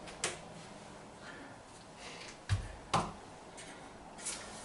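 Handling sounds from tools and the worktop: a sharp click just after the start, a dull knock and another click around two and a half to three seconds in, and a fainter tick near the end.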